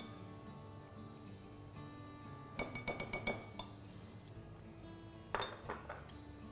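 Utensil clinking against a glass salad bowl while the salad is mixed: a quick run of ringing clinks a few seconds in and a shorter run near the end, over soft background music.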